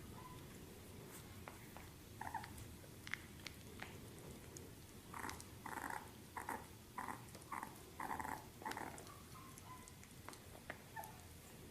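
A young puppy whimpering: a run of about seven short cries, roughly half a second apart, preceded by a few fainter squeaks.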